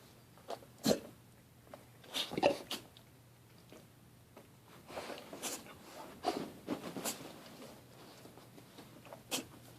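A string of short, sharp sneezes. One comes about a second in, a louder cluster around two and a half seconds, a quicker run of several between five and seven seconds, and a last single sneeze near the end.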